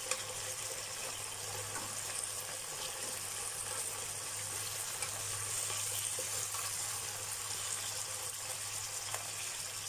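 Thin slices of marinated pork steak sizzling steadily in hot oil in a frying pan, with a small click of metal tongs near the start. A steady low hum runs underneath.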